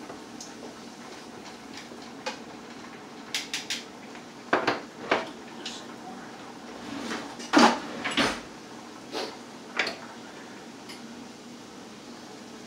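Kitchen clatter: utensils, dishes and cookware knocking and clinking, a string of separate sharp knocks with the loudest about two thirds of the way through.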